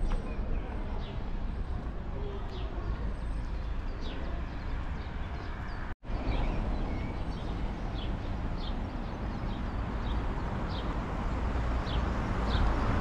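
Outdoor ambience: a small bird repeating short, high, falling chirps, roughly two a second, over a steady low rumble. The sound cuts out for an instant about halfway through.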